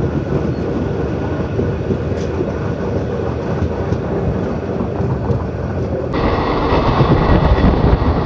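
Goa Express passenger train running along the track, a steady rumble and rattle. About six seconds in, the sound abruptly gets louder and brighter.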